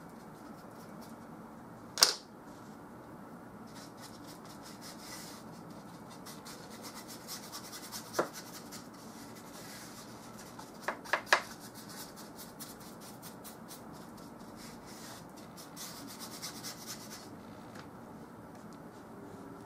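Paintbrush rubbing and stroking oil paint onto a canvas, a dry scratchy sound that thickens into quick, repeated strokes through the middle. A sharp click comes about two seconds in, another near the middle, and three quick clicks soon after.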